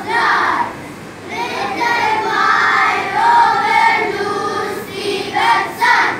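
A group of young children singing together, with a short break about a second in and longer held notes after it.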